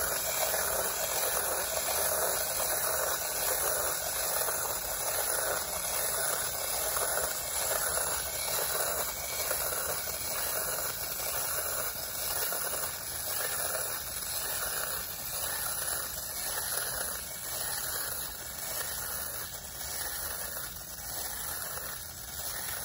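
Wind-up crab toy's clockwork mechanism running, a steady whirring hiss with faint, evenly spaced ticks as it walks slowly.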